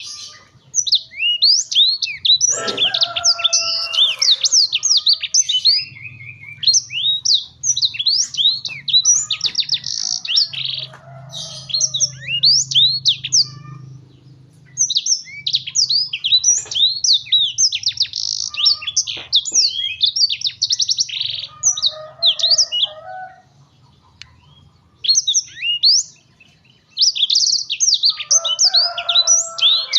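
Black-throated canary (blackthroat) singing in long runs of rapid, high twittering and sweeping notes, with a couple of short breaks. The bird is in an excited, fired-up full song.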